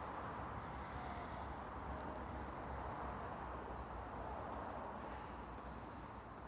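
Outdoor ambience: a steady rushing background noise with faint, short, high bird chirps scattered through it.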